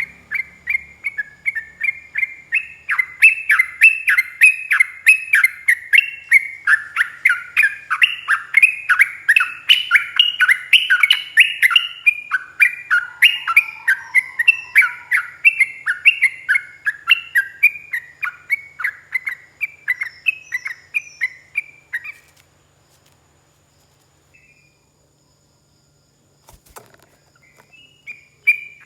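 Yellow-vented bulbul (trucuk) singing a long, fast run of repeated chirping notes, about four a second, the kind of continuous 'ropel' song used as masteran. The song stops about two-thirds of the way in; a single click follows, and singing starts again near the end.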